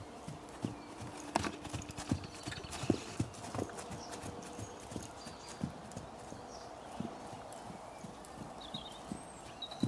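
Hoofbeats of a grey Lusitano horse trotting on the lunge over a sand arena, a run of soft uneven thuds, denser and louder in the first few seconds.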